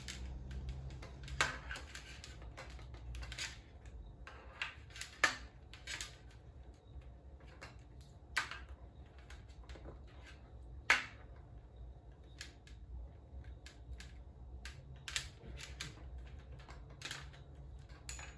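Irregular clicks and knocks of ring light and tripod parts being handled and fitted together, with two sharper knocks about five and eleven seconds in.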